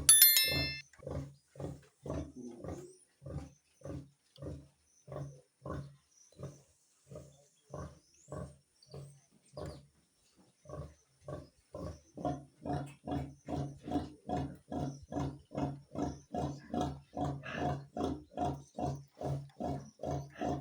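Sow grunting in a steady rhythm, short low grunts about two a second, which become louder and a little quicker about twelve seconds in. A brief high squeak comes right at the start.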